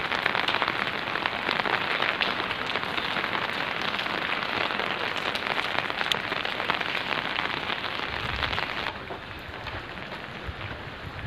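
Steady rain, with dense pattering of drops close by on an open umbrella overhead. Near the end it suddenly turns quieter and lighter.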